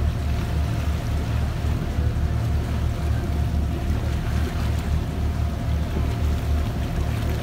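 Motorboat engine running steadily: a low, pulsing drone with a faint steady hum above it.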